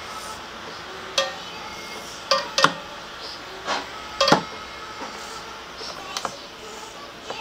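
Half a dozen short, sharp clicks and knocks, hard objects handled and set down while a scooter is being serviced, over a steady low workshop background.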